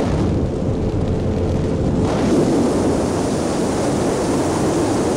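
Motorboat underway at speed: the engine runs steadily under a heavy rumble of wind on the microphone. About two seconds in, a louder hiss joins in and holds.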